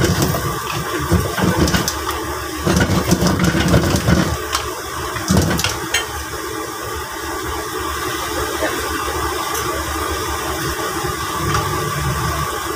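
Steady low rumble of a gas stove burner running under a frying pan, with clinks and clatter of utensils in the first six seconds.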